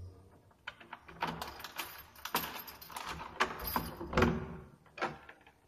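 Keys jangling and clicking at a door lock, with the metal door handle rattling: a run of irregular clicks and clatters, loudest about four seconds in.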